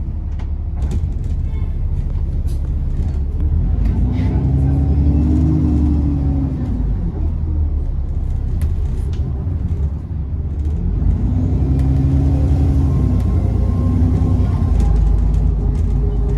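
Bus diesel engine heard from on board while driving, its note rising and falling twice as it pulls away and changes gear over a steady rumble. A faint turbo whistle is heard near the end.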